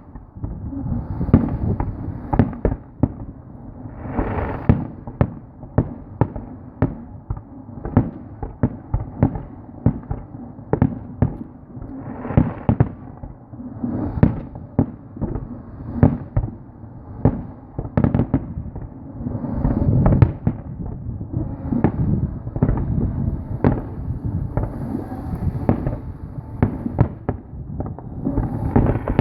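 Fireworks display: a continuous barrage of aerial shell bursts, sharp bangs several a second with rumbling booms and crackle in between.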